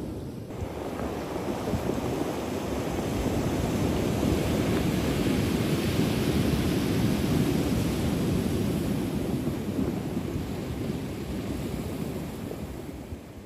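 Sea surf washing onto the shore: a long, even rush of water that swells over the first few seconds and slowly fades near the end.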